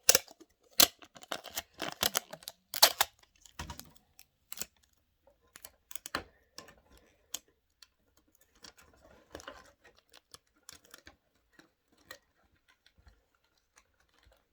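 Small plastic craft pieces and sticky tape being handled: a quick run of sharp clicks and taps for the first few seconds, then sparser, fainter ticks and light rustling.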